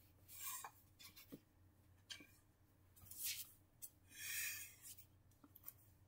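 Soft rubbing and rustling of fabric as plush toys and clothing are handled close to the microphone, in several short brushes; the loudest come a little past three seconds in and again about four seconds in.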